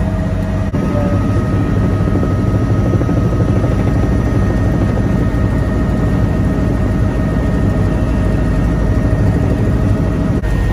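Helicopter engine and rotor running steadily in flight, heard from inside the cabin: a loud, even drone with a few thin, steady whining tones above it.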